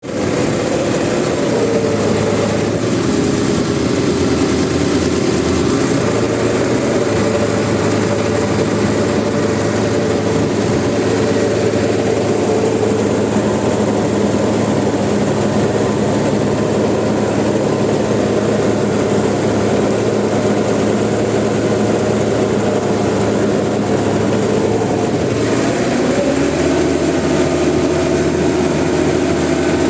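Massey Ferguson 399 tractor's diesel engine running steadily, its engine note changing abruptly about 25 seconds in.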